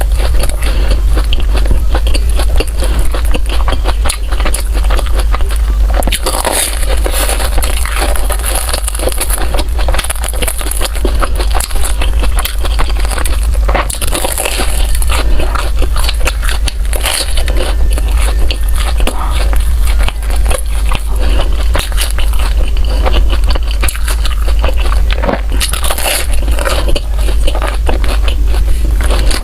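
Close-miked eating: repeated biting and chewing of bread with moist, crackly mouth sounds, over a steady low hum.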